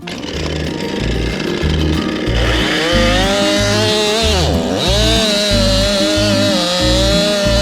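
Chainsaw running at full throttle, cutting through a tree trunk. Its pitch wavers and dips sharply for a moment about four and a half seconds in as the chain loads up in the wood. Background music with a steady beat plays along.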